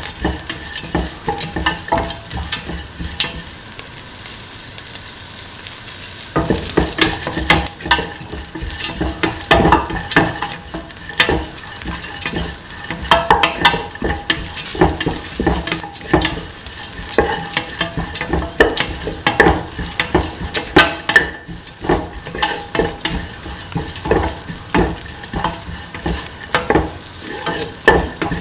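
Sliced onions and fennel seeds sizzling in hot oil in a stainless steel pan while a spatula stirs them, clicking and scraping against the metal.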